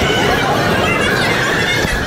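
Indistinct chatter of several people over a steady, dense background noise.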